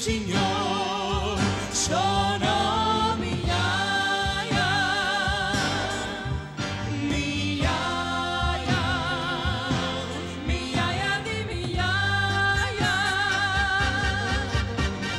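Live gospel-style worship song: a woman singing with vibrato over drums, cymbals and keyboard.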